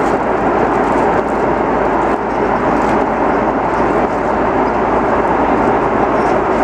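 Steady, loud noise of an Airbus A330-300's jet engines and rushing air, heard inside the passenger cabin.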